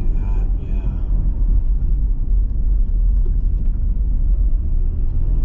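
Car driving, with a steady low rumble of engine and road noise that holds level throughout.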